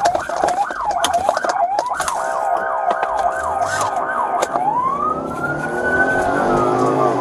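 Police siren heard from inside a patrol car's cabin. It cycles quickly up and down, switches to a faster warble about two seconds in, then changes to a slow wail that rises and falls from about halfway through.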